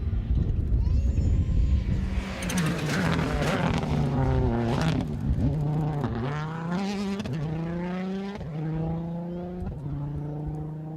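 Rally car engine passing at speed, then accelerating away through the gears: the engine note climbs and drops back at each of about four upshifts as the car fades into the distance.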